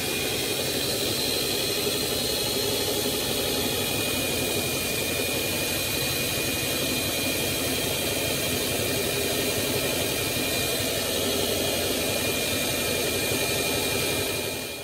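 Drum sander running steadily: a constant rushing noise with a steady motor whine on top, cutting off abruptly at the very end.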